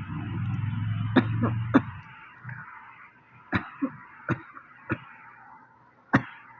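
A person's short, dry coughs, about eight in all: three close together about a second in, then single coughs spaced out. A steady low hum runs under the first two seconds and then stops.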